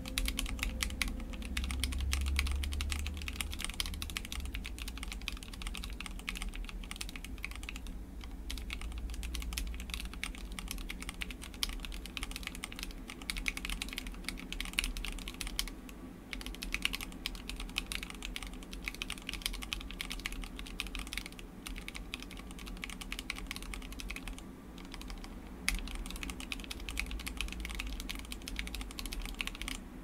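Fast, continuous typing on a Lily58 Pro split mechanical keyboard with Gateron Cream Soda switches lubed with Krytox, acrylic plate and NicePBT keycaps: a dense run of keystroke clacks, pausing briefly about three times.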